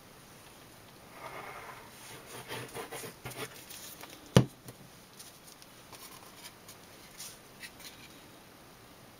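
Paper and cardstock rustling and sliding on a craft table as a glued card panel is handled and pressed down, with one sharp knock about four seconds in.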